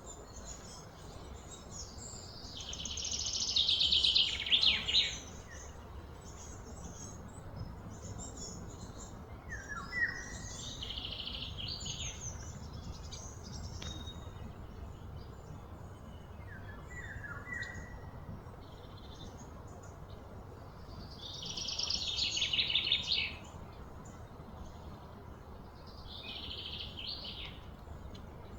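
Outdoor ambience of birds and insects: high buzzing calls swell and stop twice, loudest about three seconds in and again about twenty-two seconds in, with a few short chirps in between over a low steady hum.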